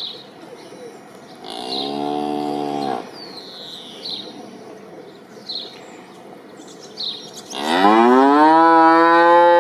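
Cow mooing twice: a shorter moo about a second and a half in, then a longer, louder one near the end that rises in pitch and holds. Short high chirps repeat in the background.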